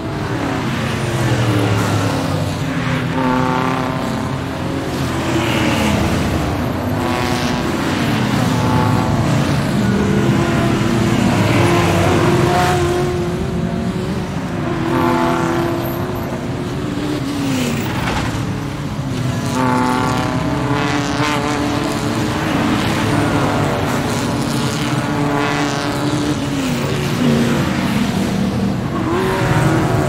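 Formula One racing car engines running at high revs, the pitch climbing and dropping again every few seconds with no break.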